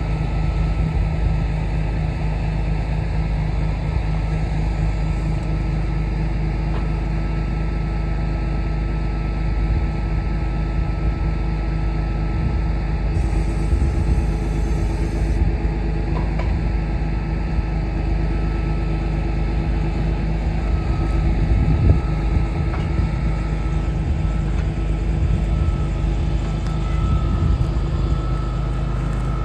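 Tractor engine running steadily: a low hum with a few steady tones that holds the same pitch throughout.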